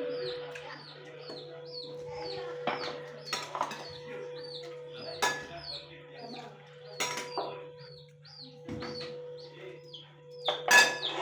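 Short high bird chirps repeating all through, a few each second, with sharp clicks and knocks now and then. A steady low hum runs underneath.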